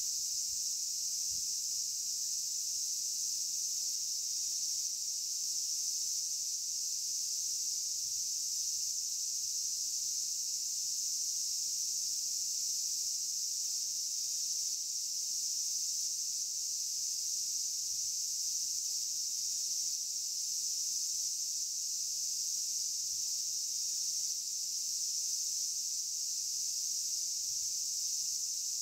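Steady, high-pitched drone of insects, unchanging throughout, with a faint low hum beneath.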